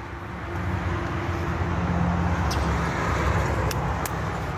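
A motor vehicle's engine running close by: a low, steady rumble that grows louder over the first two seconds and then holds. A few light clicks sound near the end.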